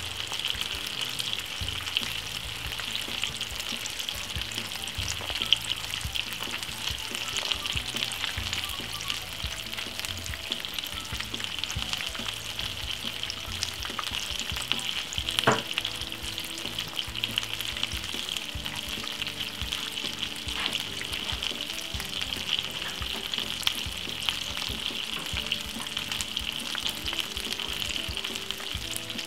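Coated salmon pieces shallow-frying in hot oil in a frying pan: a steady crackling sizzle as the fish crisps. A single sharp click comes about halfway through.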